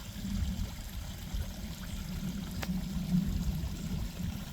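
Water pouring and trickling steadily into a garden pond, with one small click a little past halfway.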